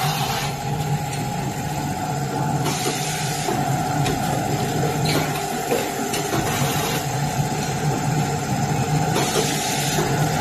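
Sanitary napkin packaging machine running, a steady mechanical hum with a few faint clicks.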